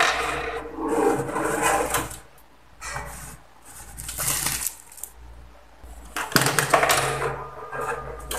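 A homemade tissue vending machine in operation: three bursts of mechanical clatter and rustling, with a wrapped tissue pack pulled out of its round dispensing hole about four seconds in.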